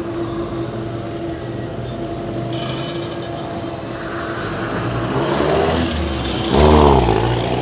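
Street traffic beside a moving tram: a steady hum with a steady tone, then a hiss a couple of seconds in. Near the end a close car's engine revs up and falls back, the loudest sound.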